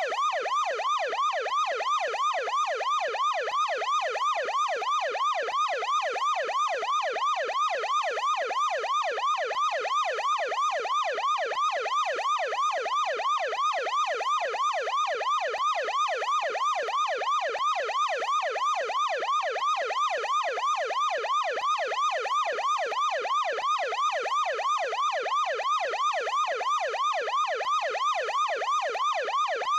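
Electronic ambulance siren on its yelp setting: the pitch sweeps quickly up and down, about three times a second, repeating steadily without a break.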